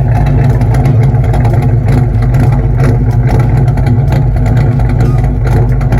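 A car engine running steadily and loudly at an even speed, with no revving.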